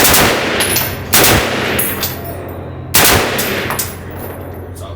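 Rifle set to full auto fired in three short bursts, about a second in and near the three-second mark after the first.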